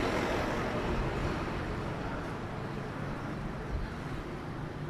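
Street traffic noise, with a passing motor vehicle loudest at the start and fading over the first couple of seconds.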